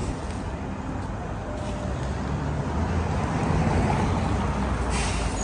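Steady low rumble of street traffic, with a short hiss near the end.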